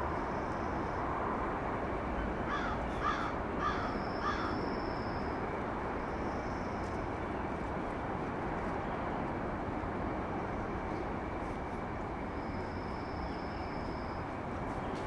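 A crow cawing about four times in quick succession a few seconds in, over a steady background rush. A thin high whistle comes and goes several times.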